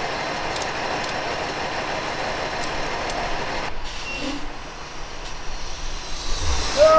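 Steady running noise from a semi-truck's diesel engine at idle, dropping to a quieter background a little past halfway. A loud wavering, pitched sound starts at the very end.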